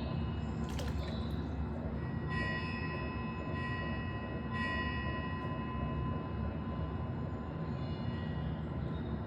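Steady rushing white noise with metal bell tones ringing over it, the bells sounding again a few times and fading; a short sharp click about a second in.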